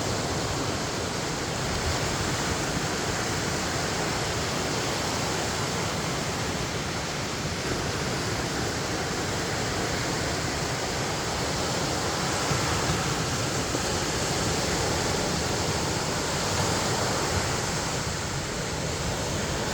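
Steady, even rushing of Lake Michigan surf mixed with wind and rain, swelling only gently with no separate splashes or breaks.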